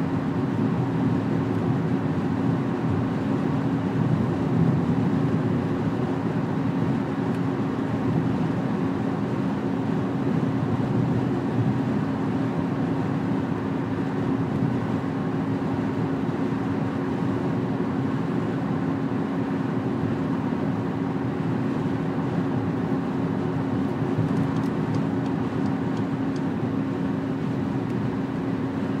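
Car cruising at motorway speed, heard from inside the cabin: steady tyre and road rumble under a constant engine hum.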